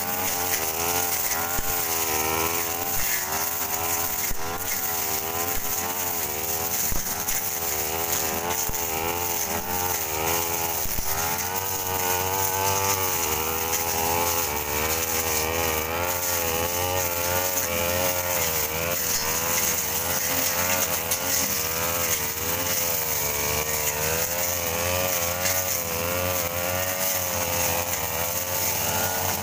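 Backpack brush cutter engine running at working speed while cutting grass, its pitch rising and falling roughly once a second as the blade swings through the growth.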